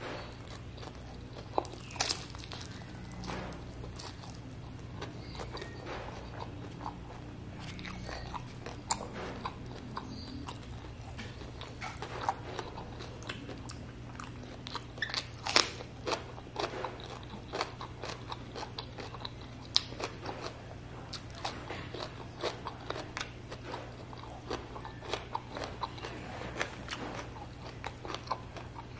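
Close-miked mouth sounds of a person eating by hand: chewing with wet smacks and crisp bites now and then. A steady low hum runs underneath.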